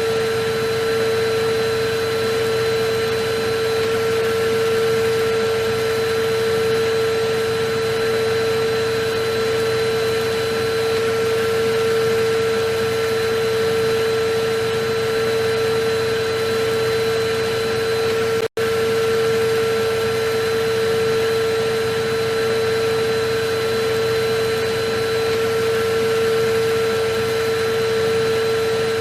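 Electric vacuum cleaner motor running steadily, a continuous whoosh of air with a steady motor whine, played as a soothing sound. It drops out for a split second about eighteen seconds in.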